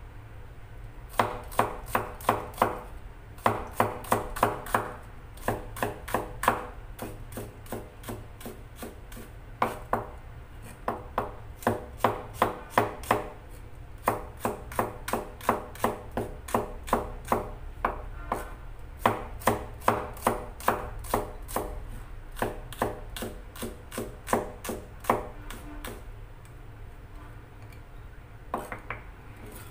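Knife chopping on a cutting board, mincing food in quick runs of strokes, about five a second, with short pauses between runs.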